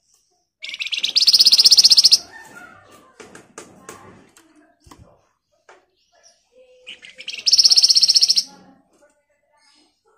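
Caged flamboyan (wergan) songbird giving two loud, fast, buzzing rattle-trills of about a second and a half each, the second about seven seconds in. Softer chirps and small taps come between them.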